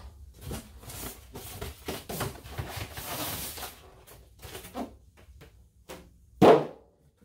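Cardboard box and packing rustling and knocking as things are lifted out of the box, with one loud thump near the end.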